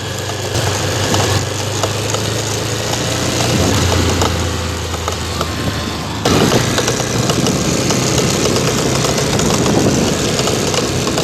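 Honda CBX 250 Twister motorcycle running, its single-cylinder engine steady under a rapid clicking "trec trec" from the rear wheel. The clicking is the sign of a failed rear wheel bearing on the sprocket side, with two of its balls already burst. The sound gets suddenly louder about six seconds in.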